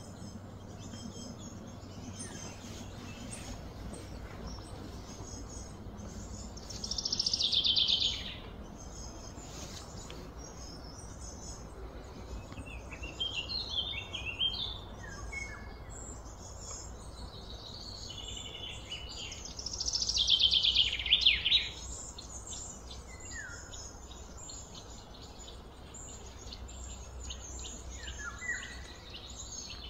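Birds chirping and calling, with two louder, longer trilled calls falling in pitch about seven and twenty seconds in, over a faint steady low hum.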